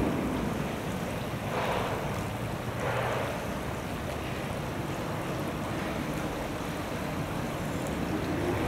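Shallow stream water running steadily, with two brief louder splashy swells about a second and a half and three seconds in.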